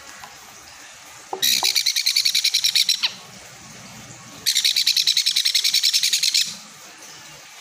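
Baby sun conure chick begging while being hand-fed: two bursts of rapid high-pitched chirps, about ten a second, each lasting under two seconds.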